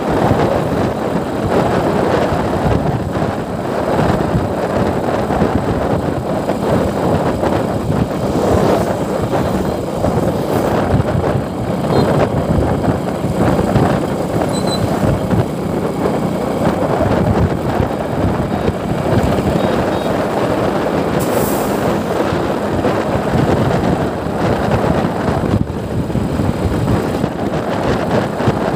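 Steady rush of wind on the microphone with road noise from a motorcycle moving at speed along a highway.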